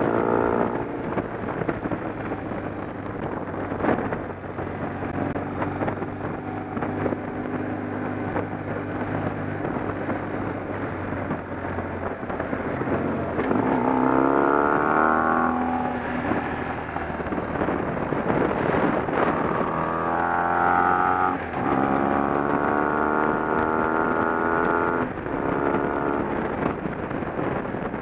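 A vehicle engine running, its pitch climbing several times in the second half, each climb broken off by a sudden drop in pitch.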